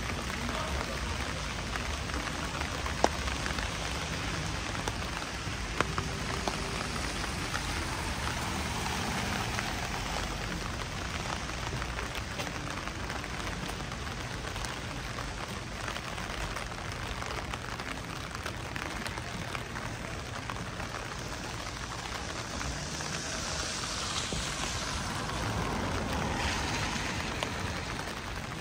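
Steady rain falling, with scattered drops ticking. Near the end a swell of hiss rises and fades once.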